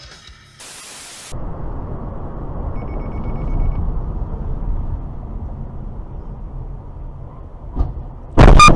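A short burst of static hiss, then steady road noise inside a moving car, and near the end a loud crash as the car collides with a Toyota sedan, crumpling a bumper.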